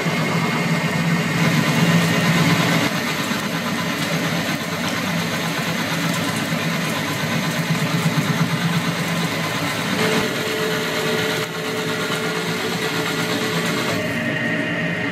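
Victor metal lathe taking a roughly 1.5 mm cut along the outside of a 4-inch metal bar under power feed, with a steady machining noise from the spindle drive and the tool cutting, plus a steady faint whine.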